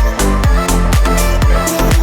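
Background electronic dance music with a steady, driving kick-drum beat, about three beats a second, under held synth notes.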